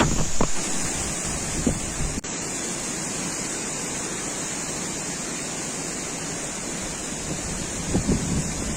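Strong wind blowing across the microphone: a steady rushing noise with low rumbling gusts that swell a few times, and a brief dropout a couple of seconds in.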